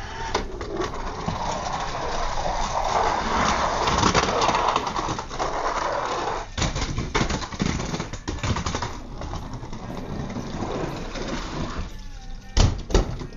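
Die-cast toy car rolling fast down a gravity race track: a steady rushing rattle of its wheels on the track that builds over the first few seconds, with many small clicks. Two sharp knocks near the end as the car hits the bottom of the track.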